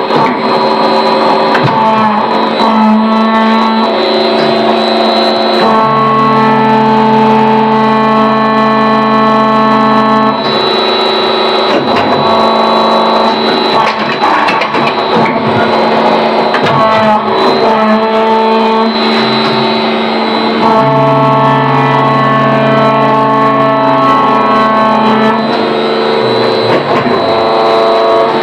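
Background music: held keyboard chords that change every few seconds.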